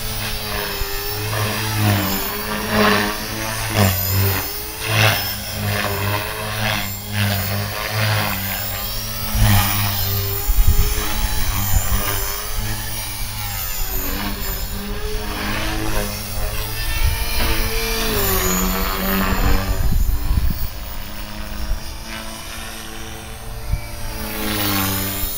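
Align T-Rex 450 Pro electric RC helicopter in flight: its brushless motor and rotor whine, rising and falling in pitch as it manoeuvres. A low rumble comes and goes from about ten seconds in.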